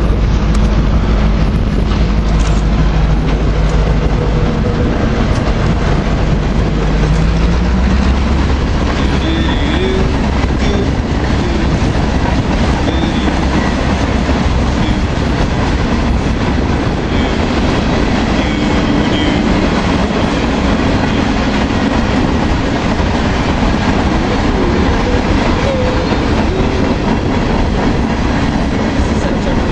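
Freight train of tank cars and other freight cars rolling past close by: steady wheel and rail rumble with clickety-clack over rail joints and a faint wheel squeal now and then. A diesel locomotive's engine hum is heard in the first several seconds and drops away about eight seconds in.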